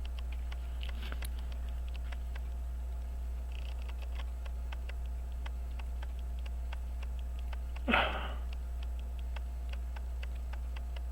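Rapid, even ticking of a running timepiece, several ticks a second, over a steady low hum. A short breathy noise stands out about eight seconds in.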